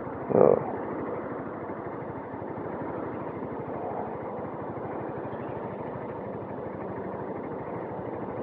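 Honda CBF190X's single-cylinder engine running steadily at low revs while creeping in slow traffic, mixed with the noise of the surrounding traffic. A short louder sound comes about half a second in.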